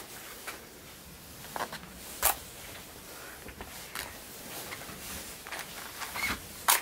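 Handling noises from a box of wooden matches being opened and fingered: light rustling with a few short sharp clicks.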